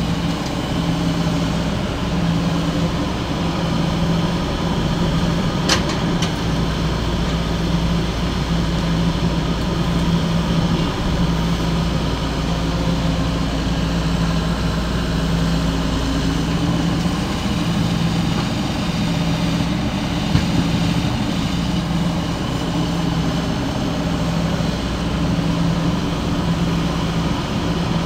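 Excavator's diesel engine running steadily, with a short sharp click about six seconds in and another about twenty seconds in.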